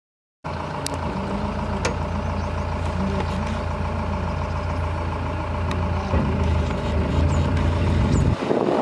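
Vehicle engine running with a steady deep hum, heard from on board. It cuts in abruptly just after the start, and near the end gives way to a broad rushing noise.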